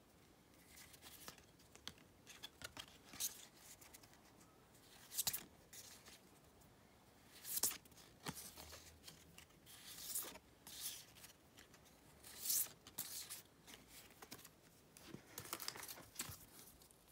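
Polaroid-style photo cards being flipped and slid against each other by hand, with plastic packaging crinkling: a string of short, irregular swishes and rustles.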